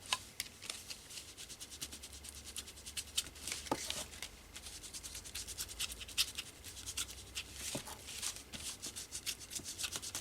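Distress ink being rubbed onto a paper card: quick, repeated scratchy rubbing strokes, with a few light knocks.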